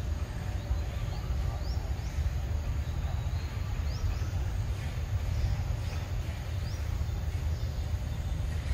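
Outdoor ambience: a steady low rumble of wind on the microphone, with scattered short rising chirps from small birds.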